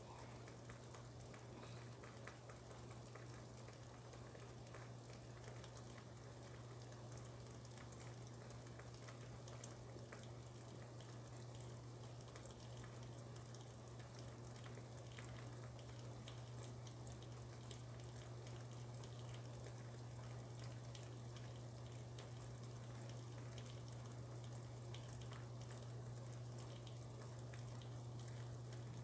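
Steady rain heard from indoors: a soft hiss with many small ticks of drops, over a low steady hum.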